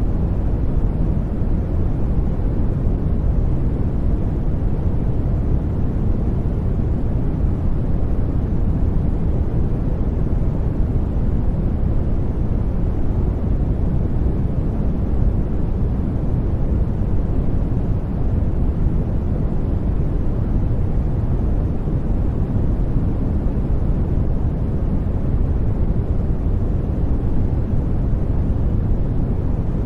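Steady noise of a study-aid noise track: a dense, even rush with no tone or rhythm, heavy in the bass and dull in the treble, so it sounds deep rather than hissy.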